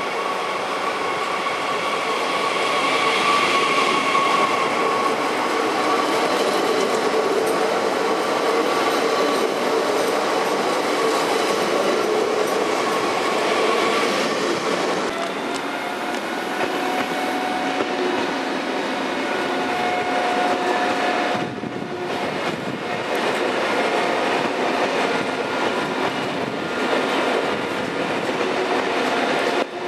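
Passenger trains running through a station: a regional multiple unit pulling in and a train passing close by on the nearer track, with a steady rumble and a whine. After a break about two-thirds of the way through, passenger coaches roll past.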